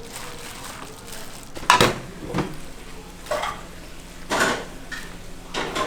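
Dishes and metal utensils clattering, with about five separate clanks spread over several seconds.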